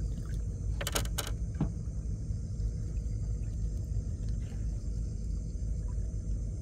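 A small boat's engine running steadily with a low rumble. A few short clicks and knocks come about a second in.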